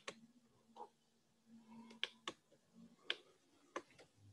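Computer mouse clicking: about half a dozen short, sharp clicks, scattered through a near-silent pause.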